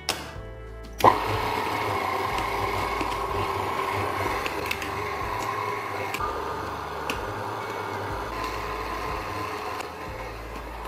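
Electric stand mixer switching on about a second in and running steadily, its flat beater churning creamed butter and sugar as an egg is beaten in.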